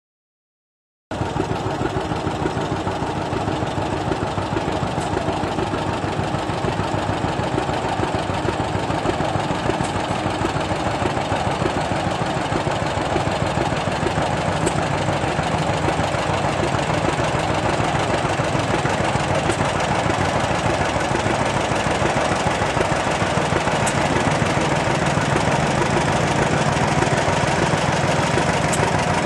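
Antique tractor engine running steadily at idle, cutting in abruptly about a second in and growing slightly louder toward the end.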